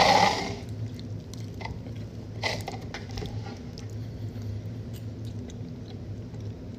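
People chewing mouthfuls of soft chocolate cake, with faint wet mouth sounds and small clicks, after a short loud noisy burst at the very start. A steady low hum runs underneath.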